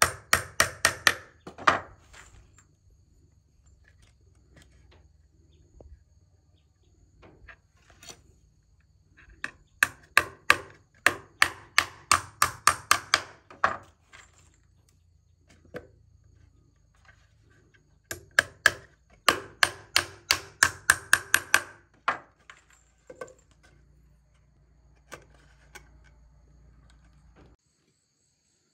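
Rapid blows of a hand tool on wood, about four or five a second, in three runs of several seconds each with pauses between.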